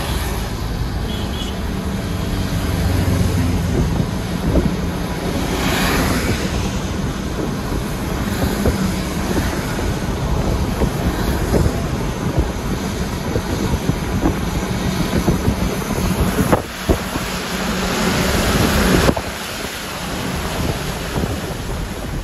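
Wind rushing and tyre noise inside a car moving at speed on a wet highway: a steady, loud rush with a low drone underneath. It grows briefly louder about three seconds before the end.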